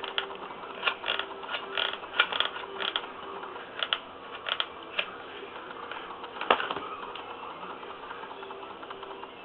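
Trigger of an industrial hot glue gun being worked, a run of ratchet-like clicks over the first five seconds and one louder click about six and a half seconds in, as a fresh glue stick is fed through.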